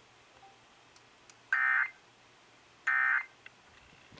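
Emergency Alert System end-of-message data bursts: short, identical digital SAME-tone squawks, two about a second and a half apart and a third starting at the very end, marking the end of the alert.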